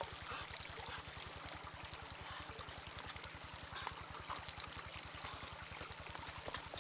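Shallow stream running and trickling over rocks, with a few faint clicks of a metal spoon against a pan and a bowl.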